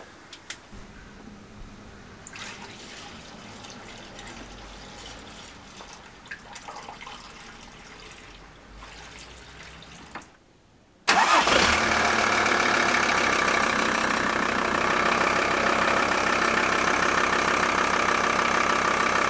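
VW T4 Syncro's 2.5 TDI five-cylinder diesel idling steadily on its first test run after the radiator was refitted, still cold. The idle comes in abruptly about eleven seconds in, after faint clatter from work on the front end.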